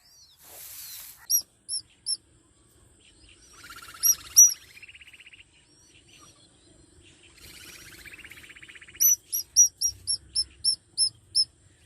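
Baby birds in a nest begging for food: sharp, high chirps, a few single ones and then a fast run of about four a second near the end, with two stretches of a softer rasping buzz in between.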